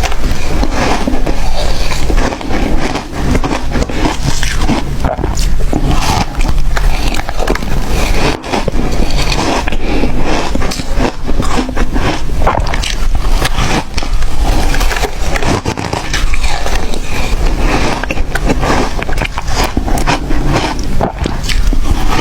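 Loud, close-up crunching of ice being bitten and chewed: a dense, unbroken run of sharp cracks and crackles.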